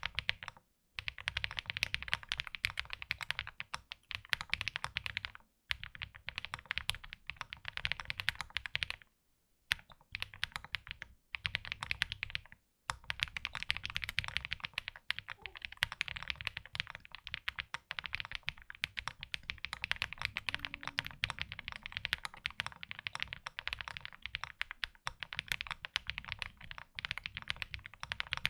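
Mechanical keyboard with AKKO Mars Green Cherry-profile ABS keycaps being typed on fast in long runs, a dense patter of keystrokes with a low thud under each click. It has a balanced sound that leans toward clacky. A few brief pauses break the typing in the first half.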